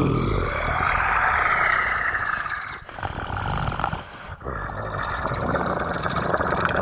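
Monster growl sound effect: a loud, rough, drawn-out roar that begins abruptly, dips briefly twice near the middle and then carries on.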